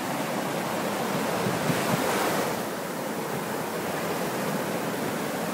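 Ocean surf breaking and washing up the beach: a steady rush of waves that swells a little about two seconds in.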